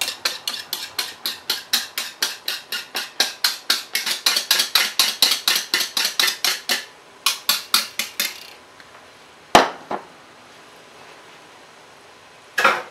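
Wire whisk beating egg batter with flour in a bowl, clicking against the bowl about five times a second; the beating stops about seven seconds in. Two single sharp knocks follow, the second near the end.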